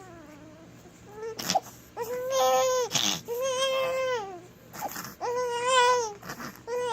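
Baby crying: three drawn-out wails of about a second each, held on a steady pitch, with a sharp click shortly before the first.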